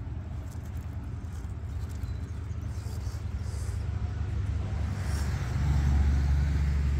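Radio-controlled scale crawler driving up a rock, its electric motor and drivetrain working under load. There is a steady low rumble that grows louder about five and a half seconds in.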